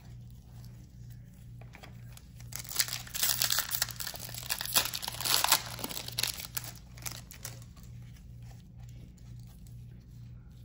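A foil trading-card pack wrapper being torn open and crinkled, a dense crackling that starts about two and a half seconds in and lasts about three seconds, followed by softer rustling as the cards are pulled out.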